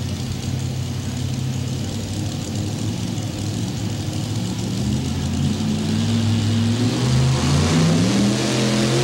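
Mini rod pulling tractor's engine running steadily at the line, then revving higher from about five seconds in as it begins its pull, getting louder toward the end.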